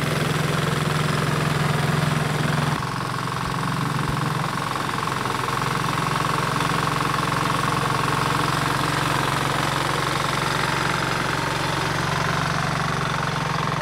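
Small engine of a two-wheel walk-behind hand tractor running steadily as it is driven through a flooded rice paddy on cage wheels. The engine note shifts slightly about three seconds in.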